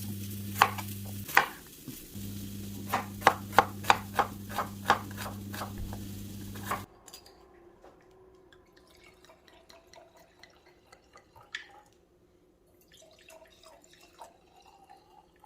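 Kitchen utensil clatter: a run of sharp knocks and taps, about two or three a second at its busiest, over a low steady hum. The hum and the knocks cut off about seven seconds in, leaving only faint small clicks.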